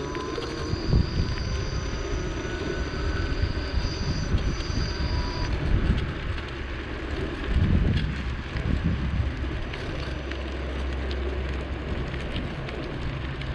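Wind buffeting the microphone, an uneven low rumble throughout. Faint thin high whines fade out about five seconds in.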